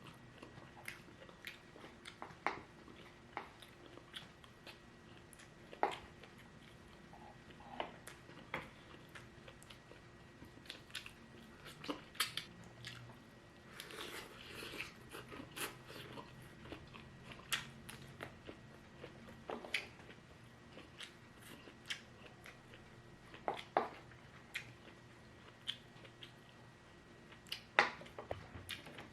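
Close-miked eating: irregular crunching bites and chewing of fried shrimp and lumpia, with sharp crackles and mouth clicks, busiest about halfway through.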